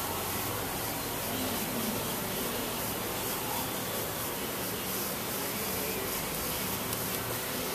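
Steady, even hiss with a faint low hum underneath, like a fan or air handler running.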